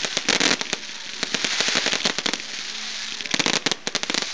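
Aerial fireworks going off: rapid crackling pops and bangs over a continuous fizz, heaviest at the start and again about three and a half seconds in.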